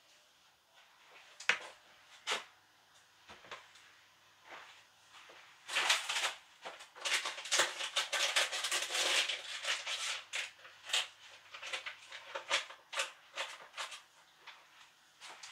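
Kitchen handling noises: scattered light clicks and knocks, with a few seconds of dense rustling about midway through.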